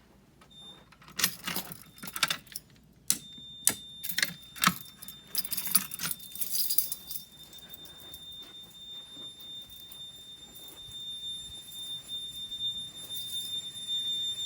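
Metallic clicking and rattling as a fire alarm device is worked. About three seconds in, a steady high-pitched electronic beep tone starts and holds: a fire alarm sounder or buzzer responding during a walk test.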